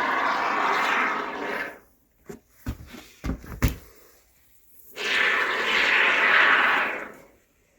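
Can of expanding spray foam (Great Stuff) hissing as foam is sprayed into the gap around a window frame, in two spurts of about two seconds each, with a few sharp knocks and clicks between them.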